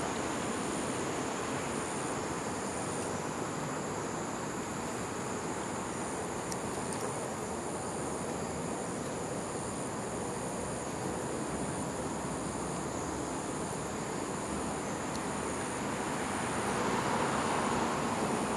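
Steady outdoor ambience: a broad, even rushing hum with high insects chirring over it, one high note pulsing in short repeats.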